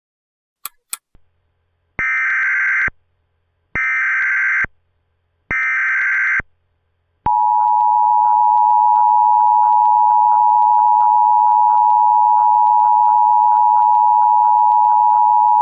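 Emergency Alert System header: three identical bursts of SAME digital data tones, each just under a second long, followed by a steady EAS attention tone lasting about eight seconds. It is the signal that opens an emergency alert broadcast. Two short clicks come just before the first burst.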